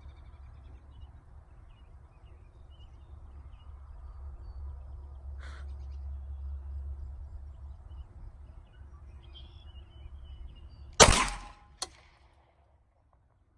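A single shot from a Glock 43X 9mm pistol about eleven seconds in, with a fainter sharp crack under a second after it. Wind rumbles on the microphone before the shot.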